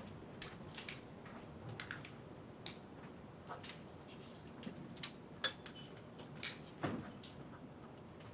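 Hushed room with scattered small clicks, taps and rustles of people handling small objects such as pens, cards and things on a lectern. A sharper knock comes about seven seconds in.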